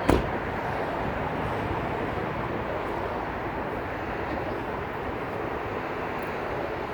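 Steady, even background noise with no clear engine tone, after a single sharp click at the very start.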